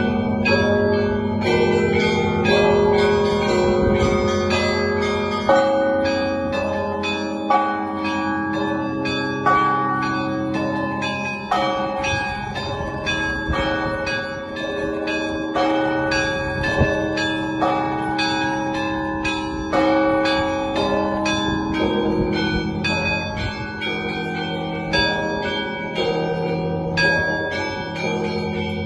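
Russian church bell ringing from a belfry. Small bells strike a fast, rhythmic pattern, several strokes a second, over the lingering tones of larger bells. A heavier bell stroke stands out about five seconds in, and again near twenty seconds.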